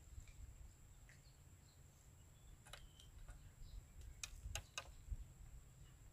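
Near silence with a low rumble, and a few soft clicks about halfway through from the fishing rod and line being handled.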